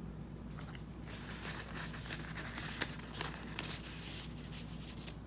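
Paper and card rustling and crinkling as they are handled, with scattered sharp clicks, most of it from about a second in until near the end.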